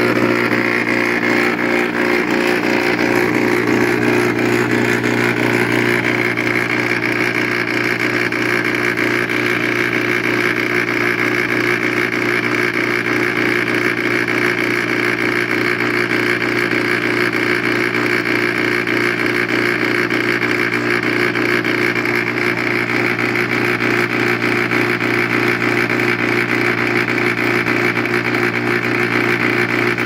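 The compressor of a 120-volt window air conditioner running on 240 volts, double its rated voltage, makes a loud, steady buzzing hum.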